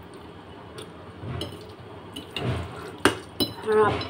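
Metal fork and spoon clinking against a plate a few times while pasta is twirled, with the mouth sounds of eating and slurping spaghetti in between.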